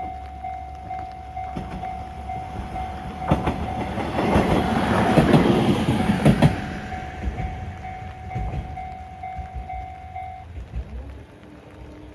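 Japanese level-crossing warning bell ringing in steady, even pulses while a single diesel railcar passes over the crossing, its wheels clicking over the rail joints. The bell stops about ten seconds in, once the train has cleared, and a faint rising whine follows near the end.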